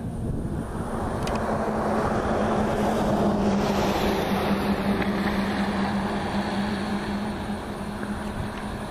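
A road vehicle passing close by. Its tyre and engine noise swells to a peak about three seconds in, then slowly fades.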